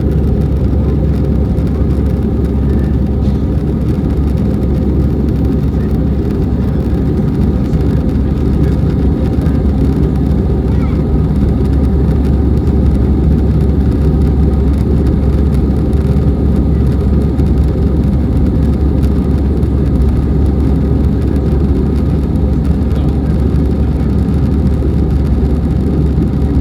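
Airbus A320 cabin noise: a steady, loud low rumble of the jet engines and airflow heard from inside the passenger cabin, unchanging throughout.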